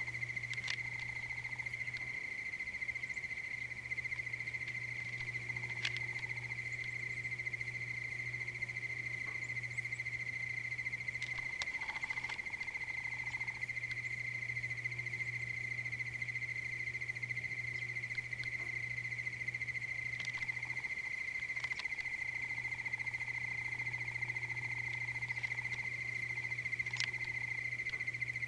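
Insects trilling in a steady, high-pitched, unbroken chorus, with a few faint clicks and a low hum underneath.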